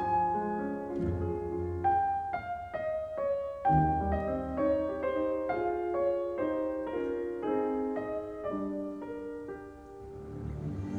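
Piano playing a slow classical piece, a steady run of separate notes over deeper bass notes, growing quieter near the end.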